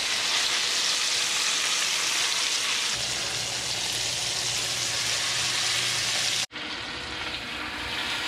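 Black bear roast searing in a pan of hot bacon grease, sizzling steadily. The sizzle cuts out for an instant about six and a half seconds in, then carries on a little softer.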